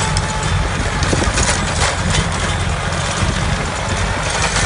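Tractor diesel engine running steadily, with a continuous rattling clatter over the low hum.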